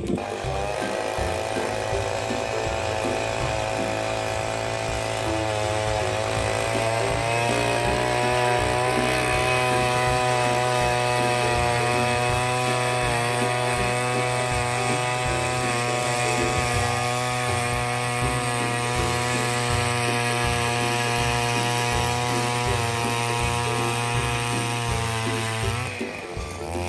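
Gas-powered ice auger engine running at high revs as the auger bores through the ice. It builds a little in the first several seconds, holds steady, then falls off near the end.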